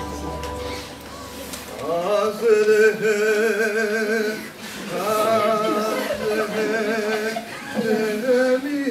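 A voice singing long held notes with vibrato in a few phrases, starting about two seconds in, as a low steady drone of music fades out.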